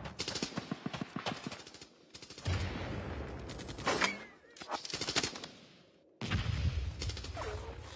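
Battle sound effects: repeated bursts of rapid automatic gunfire, several seconds of rattling shots with short gaps between the bursts, over heavy low booms.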